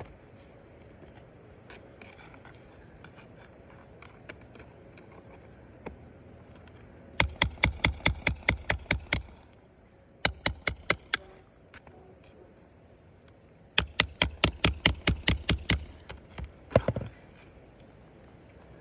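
Hammer blows on metal in three quick runs, about six strikes a second, each with a metallic ring, the first and last runs lasting about two seconds and the middle one about one second; a few single knocks near the end.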